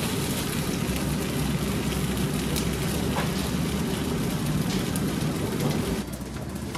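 Food sizzling in hot oil in a pan: a steady hiss with a few faint pops over a low hum. The level drops abruptly about six seconds in.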